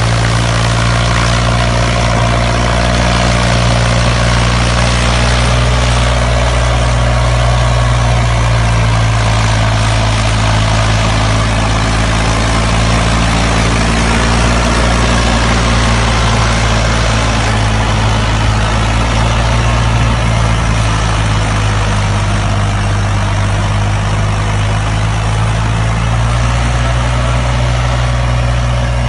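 Tractor diesel engine running steadily, a loud deep drone that holds nearly the same pitch throughout.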